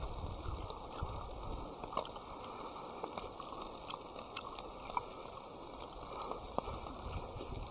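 A river flowing steadily, with scattered light clicks and taps over it.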